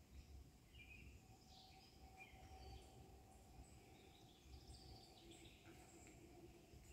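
Faint birdsong: scattered short, high chirps from several small birds, over a low rumble and a faint steady hum.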